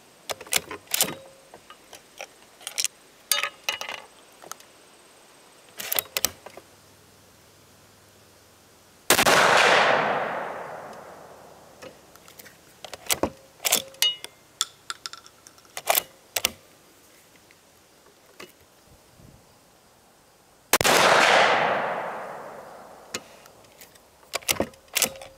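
Two shots from a Savage 220 20-gauge bolt-action shotgun firing sabot slugs, about twelve seconds apart, each dying away over about two seconds. Short sharp clicks and knocks come between and around the shots.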